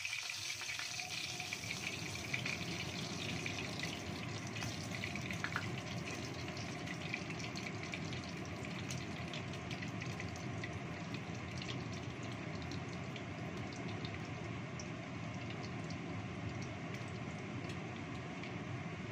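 Kitchen range-hood extractor fan running with a steady rush, while oil heating in a wok crackles and sizzles lightly.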